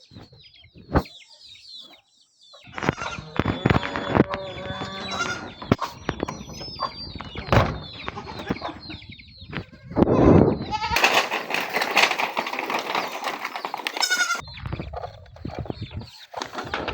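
Goats bleating repeatedly, with a few seconds of rustling noise starting about eleven seconds in.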